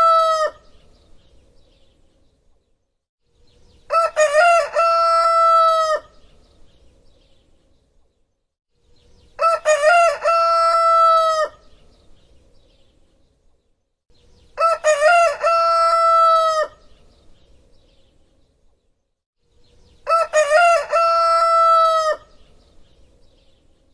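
Rooster crowing cock-a-doodle-doo: the end of one crow at the start, then four full crows about every five and a half seconds. Each crow lasts about two seconds and ends on a long held note. All the crows look identical, the same recording repeated.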